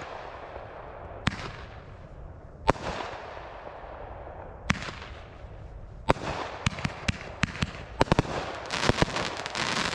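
Consumer aerial fireworks going off: single sharp bangs a second or two apart, each fading out in a hiss, then a quick run of bangs building into dense crackling near the end.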